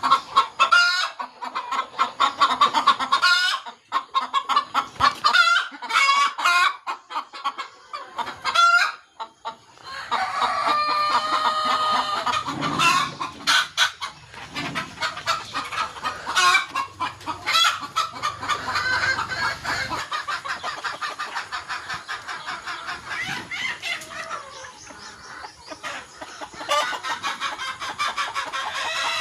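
A flock of four-month-old Sonali chickens clucking and calling over one another, with several longer drawn-out calls in the middle stretch.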